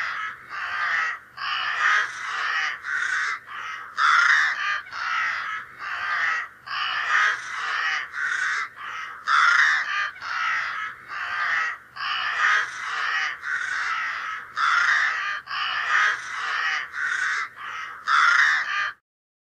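Harsh, crow-like cawing: a long string of calls about two a second that stops suddenly near the end.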